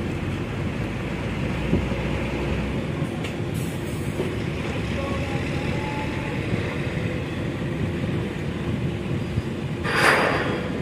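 Steady low rumble of a docking ferry's engines and propellers churning the water alongside the quay, with a short loud hiss near the end.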